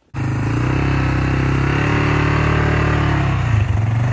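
ATV engine running steadily as the quad drives through a shallow stream, its pitch shifting slightly about three and a half seconds in.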